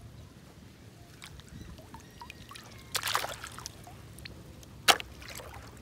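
Shallow lake water splashing briefly as a hand lifts a snail out, about three seconds in. About two seconds later there is one sharp knock, the loudest sound.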